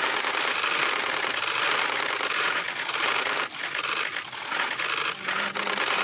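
Camera shutters firing in continuous rapid bursts, a dense rattling clatter that dips briefly a few times in the second half.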